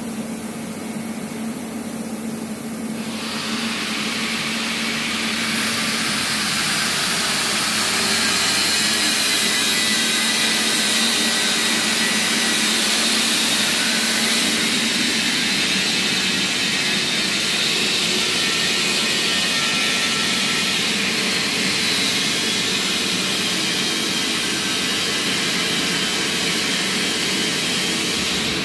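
Mikron HSM 700 HS Plus high-speed machining centre starting up about three seconds in, then running with a loud, steady hiss and whine over a low hum. The highest part of the hiss fades about halfway through.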